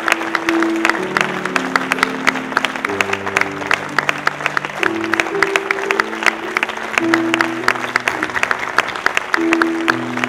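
Audience applauding, with dense, uneven clapping throughout, over slow instrumental music of held chords that change every second or two.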